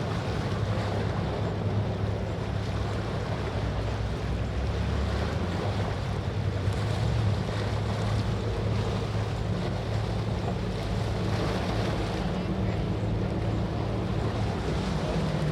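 Patrol boat's engines running steadily at speed, a low drone with the rush of water and wind buffeting the microphone.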